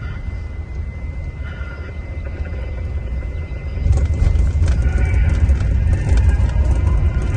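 Low, steady rumble of a Scania-chassis Marcopolo Paradiso 1800 DD coach under way, heard inside the cabin. About four seconds in it grows louder, with rapid rattling clicks on top.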